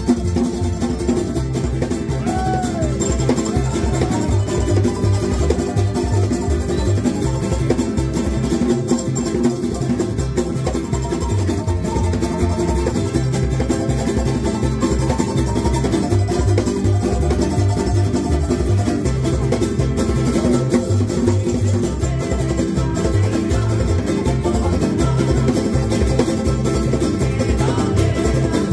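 Tahitian string-band music: fast, steady strumming on small Tahitian-style ukuleles with an electric guitar and an acoustic guitar, a bright, banjo-like driving rhythm.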